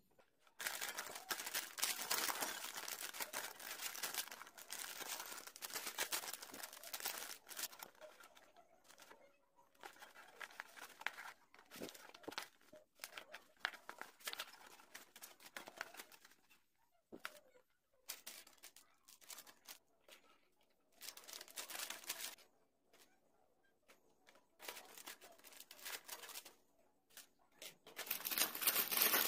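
Thin plastic bags crinkling and tearing open as model-kit runners are unpacked, with rustling of a paper instruction manual. The noise comes in irregular spurts with short quiet gaps and grows louder near the end.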